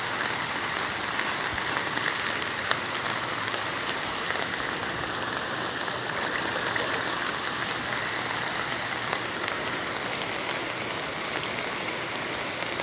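Heavy rain falling steadily: a dense, even hiss with scattered drop ticks.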